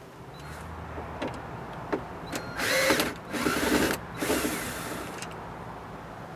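Cordless drill/driver backing out the Torx screws of a door sensor: a few light clicks, then two short runs of the driver a little past the middle, with a brief third one after them.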